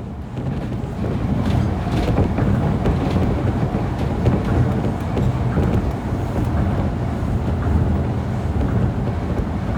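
Tokyo Monorail train running, a steady low rumble with a rushing hiss over it.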